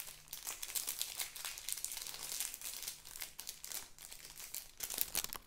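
Crinkly wrapping handled and pulled open by hand: a dense run of small crackles, with a couple of sharper ones near the end.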